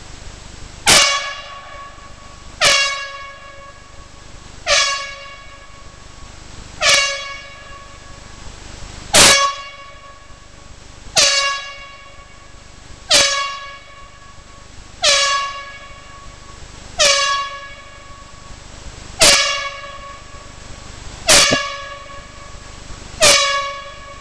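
Blasting warning horn sounding twelve short blasts about two seconds apart, each a sharp, brief pitched honk. This is the warning signal given before a rock blast is set off.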